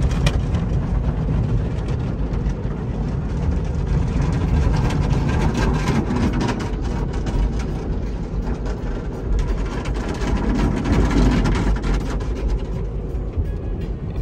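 Automatic car wash heard from inside the cabin of a Hummer: spinning cloth brushes scrub and slap against the windows and body over a steady low drone of wash machinery and water. Quick slaps come thick through the middle.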